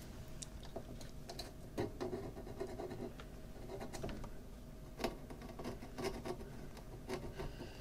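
Faint scratching and small irregular clicks of multimeter test probes being pressed and scraped against the battery terminals and power-jack contacts of a vintage portable record player during a continuity check, with a couple of slightly louder clicks about two and five seconds in.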